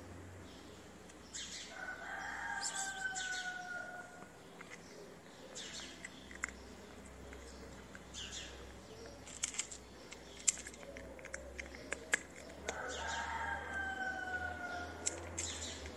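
A rooster crowing twice, about ten seconds apart, each crow a long call sliding down in pitch. A few short sharp clicks fall in between.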